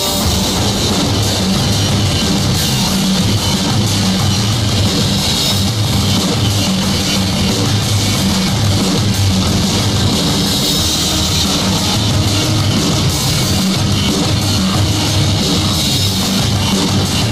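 Rock background music with drums, loud and steady.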